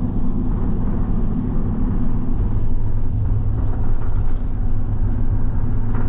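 Moving bus heard from inside the cabin: a steady low engine and road rumble that holds at an even level.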